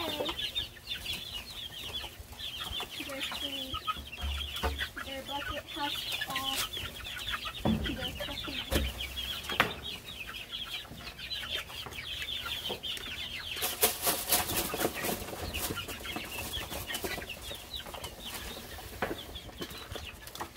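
A flock of chickens peeping and clucking without pause, many rapid high calls overlapping. Scattered knocks and rustling come through, with a louder scraping rustle about two-thirds of the way in.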